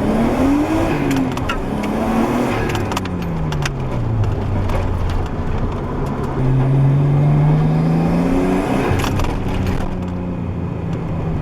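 Nissan RB20DET turbocharged straight-six in a 240SX, heard through a gutted catback exhaust with most of the muffler's sound deadening pulled out, under way. The engine note climbs, falls away over a few seconds, climbs again, then drops and holds steady. A few sharp clicks sound along the way.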